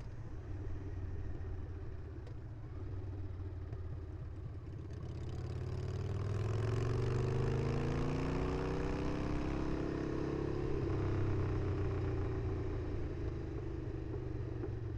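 Harley-Davidson Sportster V-twin with shotgun exhaust pipes running under way; about six seconds in the engine pulls up, its pitch rising for several seconds, then it settles into steady running.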